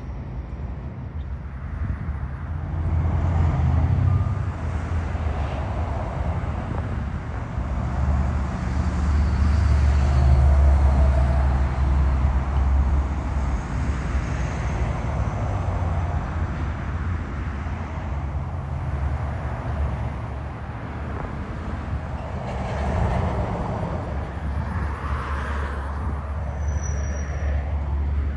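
Road traffic, heavy trucks and cars going by, a low rumble that swells and fades several times as vehicles pass. A brief high squeak near the end.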